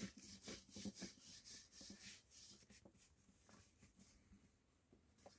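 A long thin rolling pin working a large sheet of flatbread dough on a floured board: quick, soft repeated swishes and light knocks, about three or four a second at first, growing fainter after the first few seconds.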